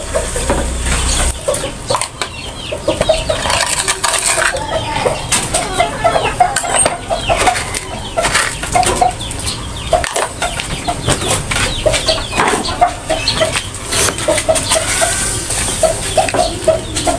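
Domestic chickens clucking, short repeated calls going on throughout, with scattered clicks and rustles.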